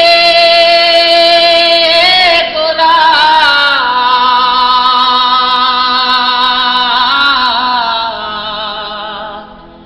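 Bengali Baul folk singing: one voice holds a long, steady note, then draws it out into a wavering, ornamented run that fades away near the end.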